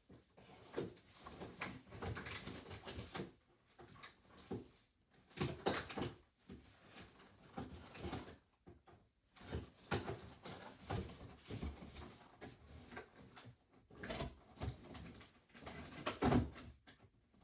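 Irregular clicks, knocks and rustles of small plastic capsules, packaging and miniature items being handled and opened on a tabletop.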